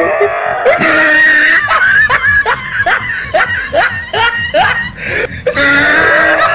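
Loud laughter in a rapid run of short, falling 'ha' bursts, about three a second, followed near the end by a held, higher-pitched cry.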